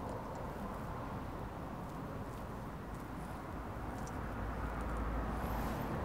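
Steady background noise with a few faint clicks; a low rumble builds over the last two seconds.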